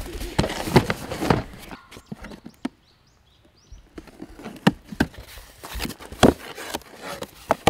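Cardboard box of a new fire pit being handled and opened: scattered knocks and scrapes, with a short quiet pause about three seconds in.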